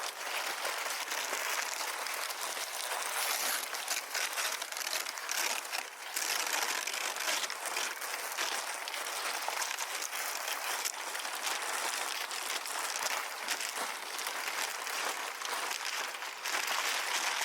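Brown paper rustling and crinkling steadily as it is crumpled and handled.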